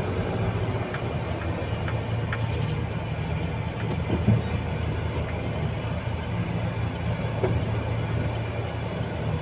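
Cargo truck's engine running steadily, heard from inside the cab, with a brief knock about four seconds in.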